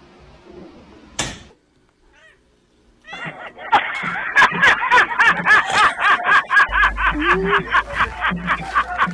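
A single sharp knock about a second in. From about three seconds in, loud rhythmic laughter in quick repeated bursts, about three a second, mixed with music.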